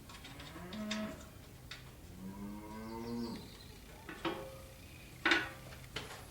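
Cattle mooing twice, a short call and then a longer one, with a few sharp knocks, the loudest a little after five seconds in.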